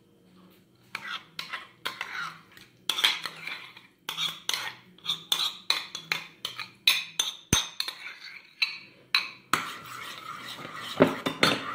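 A spoon tapping and scraping against glass in many quick clicks as thick yogurt is scooped out of a glass container into a glass bowl. Near the end it turns into continuous stirring against the bowl.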